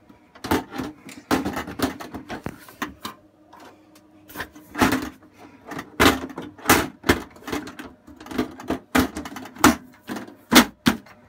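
Metal side cover of a Dell PowerEdge T610 tower server being handled and fitted back onto the case: a quick run of irregular clanks, knocks and scrapes of sheet metal.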